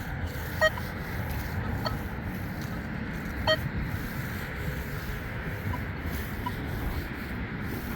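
Nokta Legend metal detector giving short, pitched target beeps, the two loudest about half a second and three and a half seconds in, over a steady low rumble of wind on the microphone.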